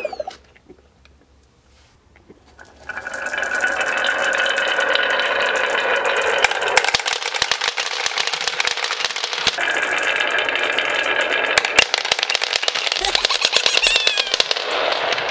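Many marbles rolling down a wavy wooden track, a dense, fast clatter of clicks and rattling as they knock against the wood and each other and drop off the end onto the floor. It starts suddenly about three seconds in and runs on unbroken.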